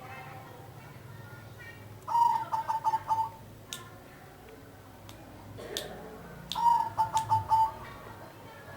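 Zebra dove (perkutut) cooing: two phrases, each about a second long, made of quick repeated notes, with a pause of a few seconds between them. Two faint sharp clicks come between the phrases.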